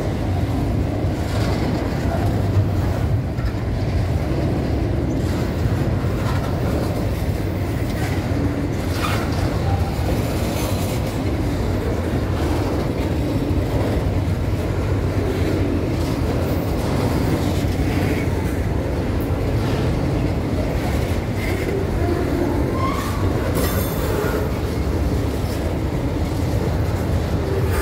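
Freight train of covered hopper wagons rolling past close by. Its steel wheels run over the rails in a steady, loud rumble that never lets up.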